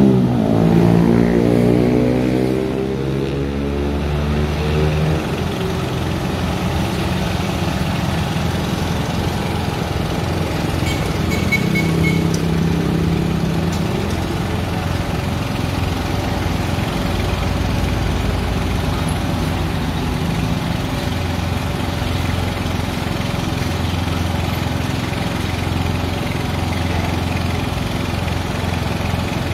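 Vehicle engines running: a passing motorcycle's engine changes pitch over the first few seconds, over the steady low hum of the Fuso crane truck's diesel engine running at idle.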